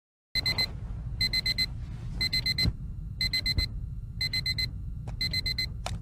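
Electronic timer alarm beeping in quick bursts of four high beeps, about one burst a second, starting about a third of a second in: the signal that the countdown has reached zero. A steady low rumble lies under the beeps.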